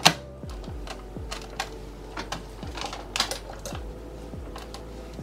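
Capsule coffee machine being loaded: a sharp click as the lever is worked at the start, then a run of smaller clicks and plastic knocks as the machine and cup area are handled, over a faint steady hum.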